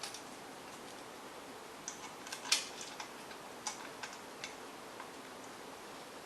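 Scattered light clicks and taps of bolts and washers being handled while a new pressure washer pump is bolted on loosely by hand. The loudest click comes about two and a half seconds in.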